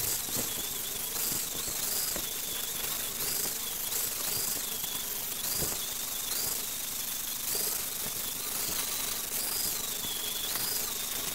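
Angle grinder running with an abrasive disc against the metal hub of a wooden cart wheel. Its high motor whine steps briefly up in pitch again and again as the disc is eased off and pressed back onto the metal.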